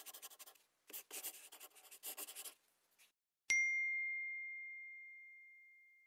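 Scratchy scribbling, like a pen on paper, in several short strokes, then about three and a half seconds in a single bright bell-like ding that rings on and fades slowly.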